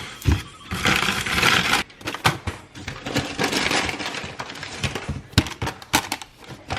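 Handling of food and kitchen packaging: rustling with many light clicks and knocks, the loudest rustle about a second in.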